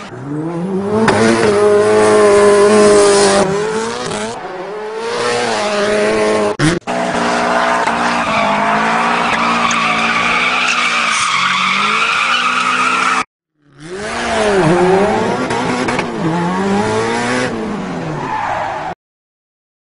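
Long, wavering pitched cries from a pet animal, rising and falling in arches, broken off twice.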